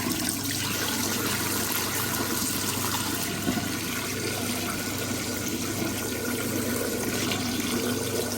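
1958 Hotpoint Empress washing machine draining: its drain pump runs with a steady low hum while the used wash water pours out through the drain hose into a sink in a steady rush.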